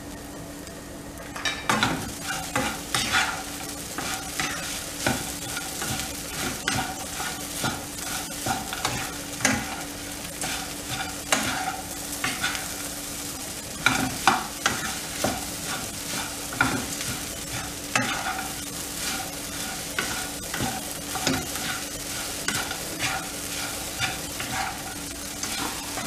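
Wooden spatula stirring soaked sago pearls, potato and crushed peanuts in a frying pan, with repeated short scraping strokes against the pan over a steady sizzle. The stirring strokes start about two seconds in.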